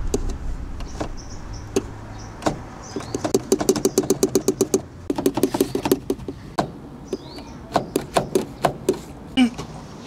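Car seatbelt being yanked: the webbing jerks against the locked retractor, which clicks and ratchets, with a quick even run of clicks about three seconds in and scattered clicks later. The belt will not pull out because it is being tugged too hard.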